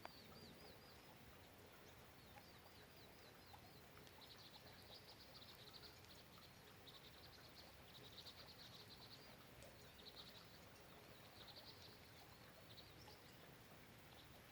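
Faint steady rain hiss with a bird's rapid, high-pitched chirping trills coming in repeated short bursts.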